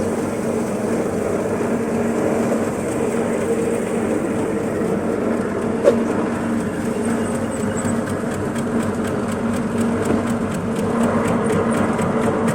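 Chip-slicing machine running steadily with an even mechanical hum, with one sharp click about six seconds in.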